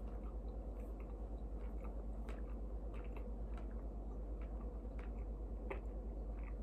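Scattered small irregular clicks and ticks over a steady low hum.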